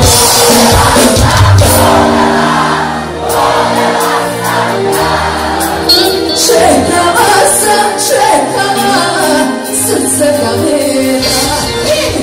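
A live pop band playing loud, with keyboard, drums and electric guitar, and a woman singing into a microphone over it.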